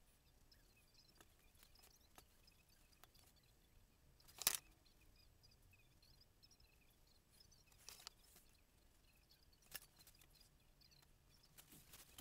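Near silence with a few short taps and knocks, the loudest about four and a half seconds in, from a small painting board and brush being handled and set down on a desk's cutting mat. Faint high chirps sit in the background.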